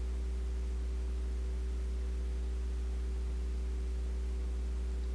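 Steady low electrical hum of the mains type, with a few higher steady tones above it and a faint hiss, holding an even level throughout.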